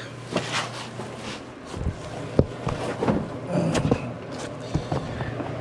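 Handling noises: scattered clicks and knocks over a steady low hum, with one sharp click a little before halfway.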